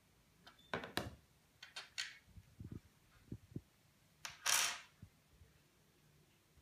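Hands handling a phone and metal rings on a tabletop: several light clicks and taps and a few dull knocks, then a brief brushing scrape about four and a half seconds in, the loudest sound.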